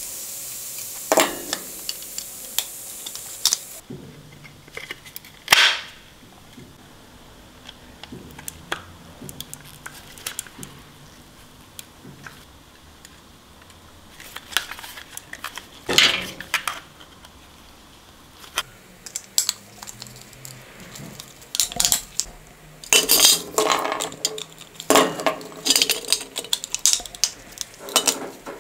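Scattered small clicks, clinks and taps of needle-nose pliers, a small metal fitting and hard plastic model-airplane parts being handled, growing into quick clusters near the end. A steady hiss runs for the first few seconds and then stops.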